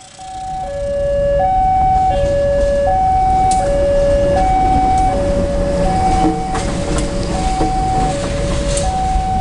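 Level-crossing warning alarm sounding a steady alternating high-low two-tone beep, changing tone about every half second or so. Under it is the loud low rumble of a diesel locomotive passing close, which swells in within the first second, with a few sharp metallic clanks.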